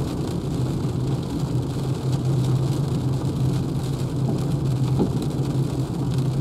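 Steady cabin noise inside a Renault Zoe electric car in the rain: a low, even hum under a hiss, with faint scattered ticks.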